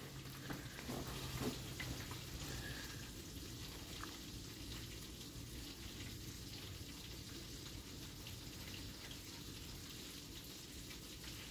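Faint steady hiss of a quiet room, with a few soft clicks in the first second or two.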